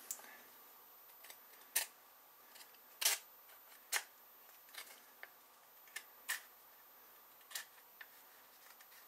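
Chisel blade scraping along the edge of a hand-cut acrylic mirror blank, shaving the rough edge smooth: a series of short, sharp scrapes at an uneven pace.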